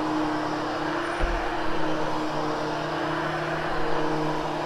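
Hoover HushTone upright vacuum cleaner running steadily with an even motor hum, being run over a freshly cleaned Triexta carpet to groom the pile.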